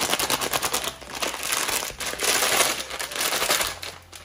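Plastic packet of dry pasta crinkling and crackling as it is gripped and handled, with brief lulls.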